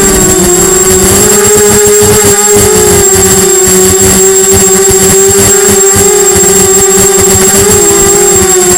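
Diatone Blade 250 quadcopter's four brushless motors and propellers buzzing loudly in flight, close to the onboard camera, with a steady pitch and a thin high whine above it. The pitch dips slightly near the end as the quad comes down low over the grass.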